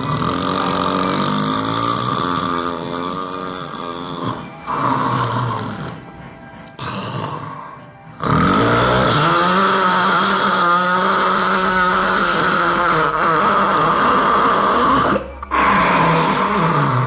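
A person snoring loudly in a series of long, drawn-out breaths with a wavering pitch. The longest snore lasts about seven seconds, about halfway through.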